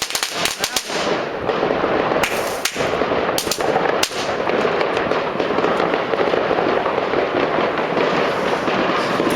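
Many fireworks going off at once: a dense, continuous crackling, with several sharp bangs in the first four seconds. It cuts off suddenly at the end.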